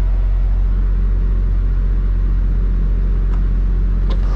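Semi-truck engine heard from inside the cab, a steady low drone, with two faint short clicks near the end.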